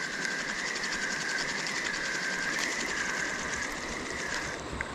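Fishing reel being cranked to retrieve a lure, a steady fast ticking whir with a wavering gear whine, stopping about half a second before the end.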